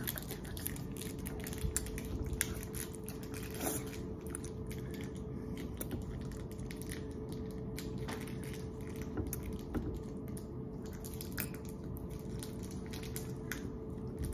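Tiny plastic spoon scraping and clicking in a small plastic cup of soft, frosting-like candy cream, with soft mouth sounds of eating, over a steady low hum.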